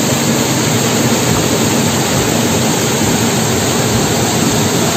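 Waterfall in full monsoon flow, swollen with rainwater and falling with great force: a loud, steady rush of water.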